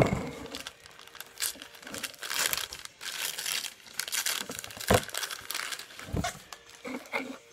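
Paper wrapping crinkling and tearing as a small wrapped Christmas ornament is unwrapped by hand. There are irregular rustles throughout, a dull knock about five seconds in, and a smaller one just after six seconds.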